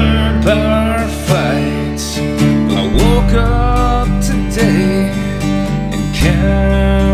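Instrumental break of a country song: strummed acoustic guitar over bass notes that change about every three seconds, with a lead melody whose notes bend and slide.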